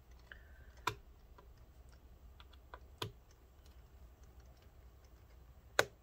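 Light clicks and ticks of a small screwdriver and screws against the laptop's metal brackets as screws are tightened: three sharper clicks a couple of seconds apart, with fainter ticks between them.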